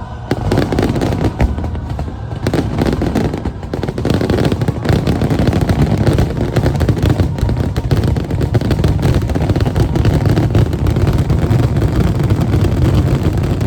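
Fireworks barrage: a dense, continuous run of rapid bangs and crackling with deep booming underneath. It grows louder about four seconds in, typical of a show's finale.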